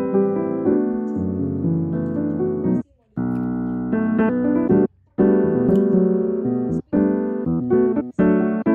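Background piano music, cut off abruptly for a moment about three seconds in and again near five seconds, with shorter breaks later.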